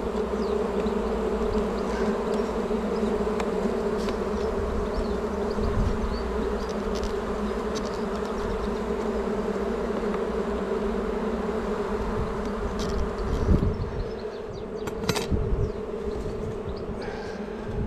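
Honeybees from an opened hive humming steadily, many bees buzzing together at a calm, even pitch. A couple of sharp knocks on the wooden hive come about two-thirds of the way through.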